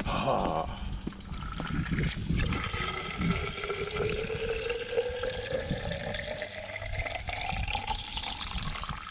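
Water from a garden hose running into a plastic CamelBak cycling bottle, the filling note rising steadily in pitch as the bottle fills.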